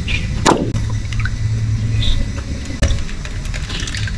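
Water running from a garden hose into a stretchy water-filled balloon toy, a steady low rushing. A short falling squeak comes about half a second in, and a single click near three seconds.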